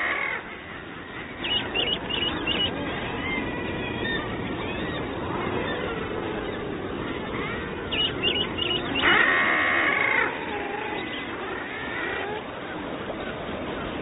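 Seabirds calling at a guillemot colony: a drawn-out harsh call at the start and another about nine seconds in, with quick runs of high chirps around two and eight seconds in, over a steady wash of the sea.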